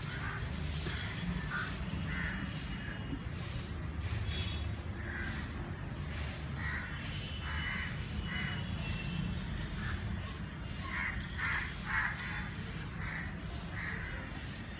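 Birds giving short calls again and again at irregular intervals, with a quick run of several louder calls late on, over a steady low rumble.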